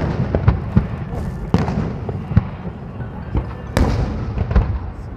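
Fireworks display: a run of irregular booming bangs and crackles from bursting shells, the loudest bang a little after halfway through.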